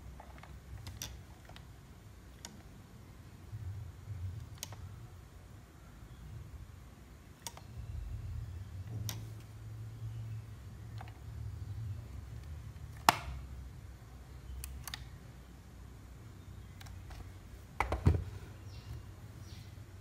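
Scattered sharp plastic clicks from a pistol-grip RC transmitter as its trigger and steering wheel are worked by hand, over a low rumble of handling noise. The loudest clicks come about thirteen seconds in and again near the end.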